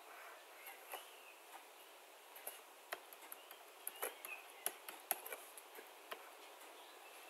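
Stylus tapping and scraping on a drawing tablet while a structure is drawn: faint, irregular clicks that are busiest in the middle, over a low hiss.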